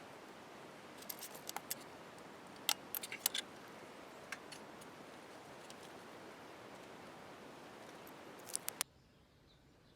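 Steady hiss with scattered sharp clicks and taps in small clusters, three more close together near the end; then the background drops abruptly to a quieter hiss.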